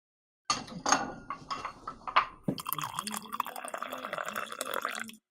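Coffee being poured into a cup: a few sharp clinks of crockery at first, then a steady pour for the last two and a half seconds that cuts off suddenly.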